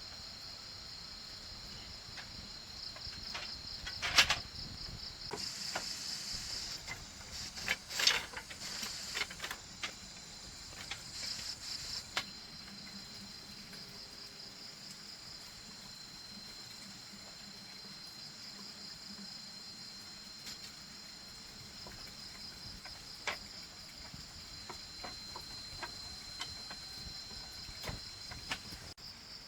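A steady, finely pulsing high insect chorus runs throughout. Over it come scattered sharp knocks and taps of bamboo being handled and fitted, the loudest about four and eight seconds in.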